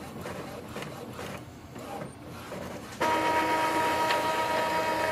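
Epson inkjet printer printing a nozzle check sheet: soft mechanism clicks and rattles, then about three seconds in a louder, steady motor whine starts suddenly as the printed sheet is fed out.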